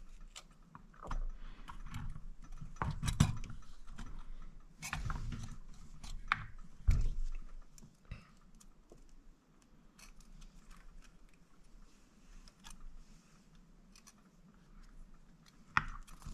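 Small metal parts of a BMW VANOS unit clicking and clinking as they are handled and fitted together by hand, with scattered knocks that are busiest in the first half and thin out later.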